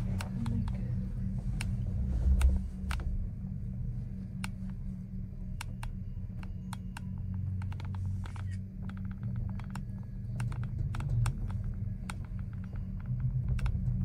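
Low, steady hum and rumble inside a gondola cable car cabin as it rides the cable, with scattered sharp light clicks and ticks, including a quick run of them about nine seconds in.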